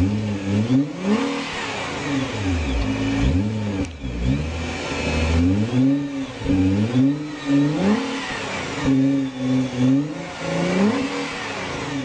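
2012 Nissan GT-R's twin-turbo V6 being revved in many quick blips, the engine note rising and falling with each one.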